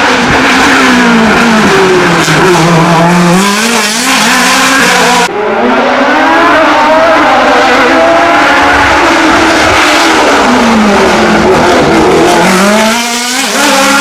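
Hillclimb race car engines revving hard, the pitch dropping on braking and downshifts and then climbing again under acceleration, with some tyre squeal. The sound cuts abruptly from one car to the next about five seconds in.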